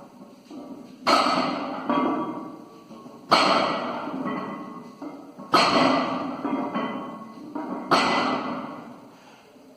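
Loaded barbell with metal plates set down on the floor between deadlift reps, four times at about two-second intervals. Each time there is a heavy thud, a smaller clank and ringing from the plates.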